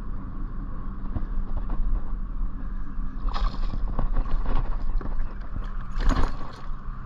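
Steady low rumble with two short, noisy splashes, about three and a half and six seconds in, as a hooked largemouth bass thrashes at the surface during the fight.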